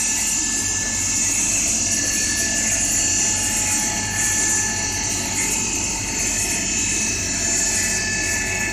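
Steady industrial machine noise: a continuous hiss with a few steady whining tones over a low hum.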